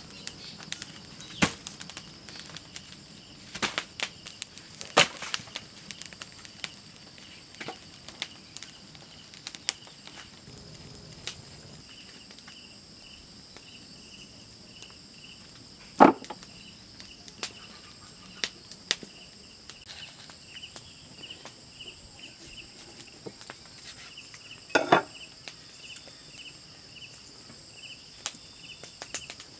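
Scattered knocks and taps from a whole goat carcass being handled and cut on a wooden chopping block, with one loud knock about halfway through and a short cluster near the end. Behind them a steady high insect drone, joined partway through by a chirping insect pulsing about twice a second.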